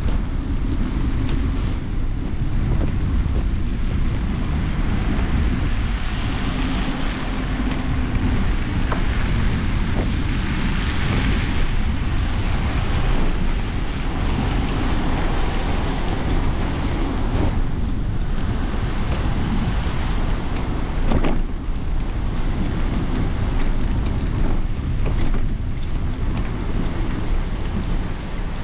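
Wind buffeting the microphone during a bicycle ride, a steady loud low rumble, with one sharp knock about three-quarters of the way through.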